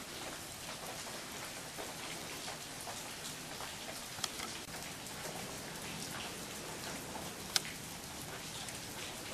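Steady soft outdoor hiss of background ambience, with a faint tick about four seconds in and another later on.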